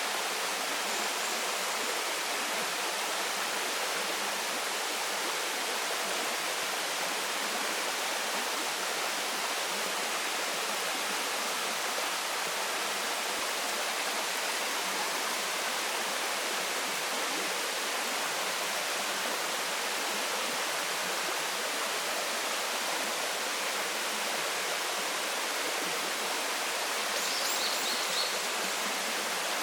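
Waterfall: the steady, even rush of falling water, with little low rumble. A few faint high chirps come through near the end.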